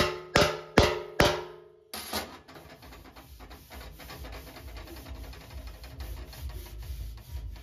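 A slapper, a flat steel bar made from an old file, slapping a classic Mini's steel front wing to tap down a high spot: four ringing metallic strikes about two and a half a second, each ringing out. About two seconds in the ringing stops, and a hand rubs lightly over the panel, feeling it.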